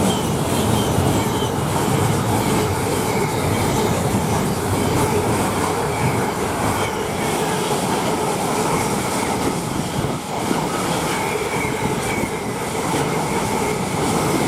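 Freightliner freight train, hauled by two Class 90 electric locomotives and a Class 66, passing through the station: a steady, continuous rumble of locomotives and wagons on the rails with faint wheel squeal.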